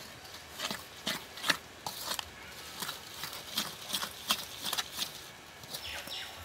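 A ladle scraping and knocking against a metal pot as grated coconut is stirred into syrup: a string of irregular scrapes and taps that stops about five seconds in.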